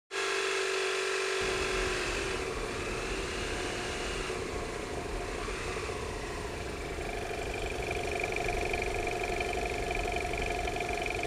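Motorcycle engine running steadily as the bike is ridden, a continuous drone whose pitch shifts a little.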